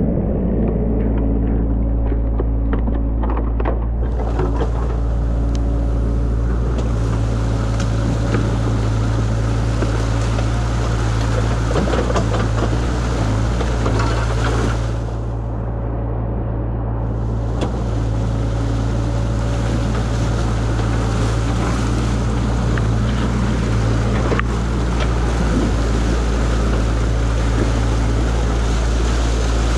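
A New Holland excavator's engine runs with a steady low drone while muddy water rushes through a breach in a beaver dam. The rushing water comes in about four seconds in and stays loud, briefly thinning about halfway through.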